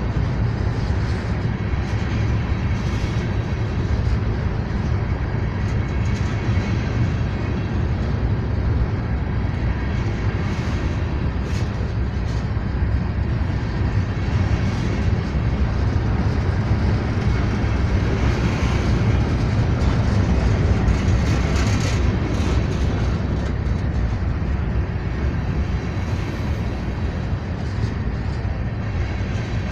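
Freight train rolling past at a steady speed: a continuous, even low rumble of wheels on the rails.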